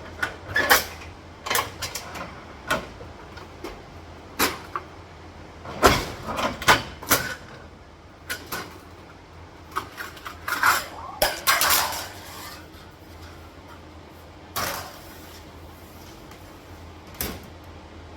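Scattered metallic clicks, knocks and clatters of tools or metal being handled, busiest in the middle stretch, over a steady low hum.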